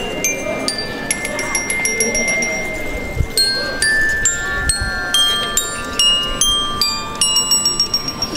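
Tuned metal chimes struck one note at a time in a slow, high melody, each note ringing on and overlapping the next; the strikes come faster near the end.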